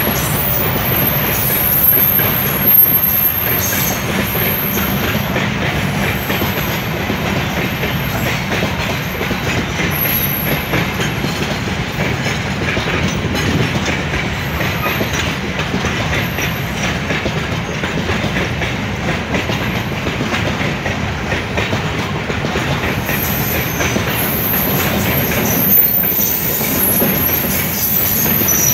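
A freight train's grain hopper cars rolling past close by, their wheels clattering steadily over the rails. A high-pitched wheel squeal comes and goes during the first several seconds and returns near the end.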